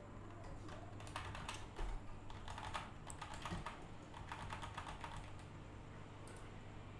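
Rapid runs of clicks from a computer keyboard and mouse, several quick bursts over a few seconds and then thinning out, over a steady low hum.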